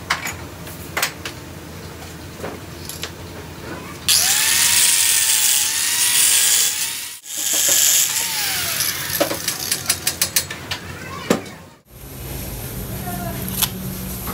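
Power tool working on metal: about three seconds of loud hissing noise with a whine that bends up and down, then a second loud burst and a quick run of taps, with scattered knocks over a low hum before and after.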